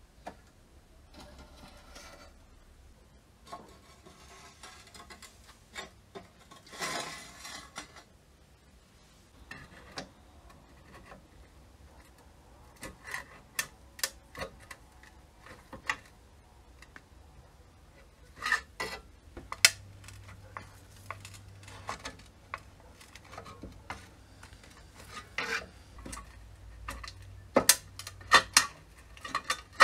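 Metal parts of an old railway lamp being handled: rubbing and scraping for the first several seconds, then a run of sharp metallic clinks and taps, coming thicker toward the end.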